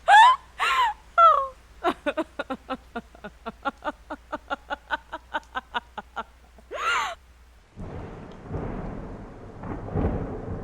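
Spooky sound effects: gliding pitched cries and a rapid run of short pitched pulses, about five a second, then from about eight seconds in a low rumble of thunder with rain.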